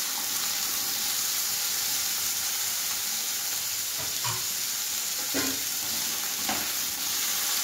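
Diced beetroot, carrot, potato and onion sizzling as they fry in oil in a nonstick wok, stirred with a spatula that scrapes and knocks against the pan a few times from about four seconds in.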